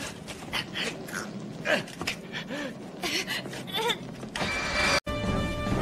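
Short pained groans from the downed suited heroes, rising and falling, over scattered sharp crackles. Near the end a burst of rushing noise cuts off suddenly, and music with held tones starts.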